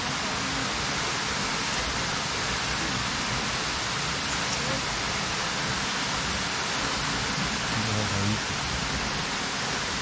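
Waterfall's steady rush of falling water.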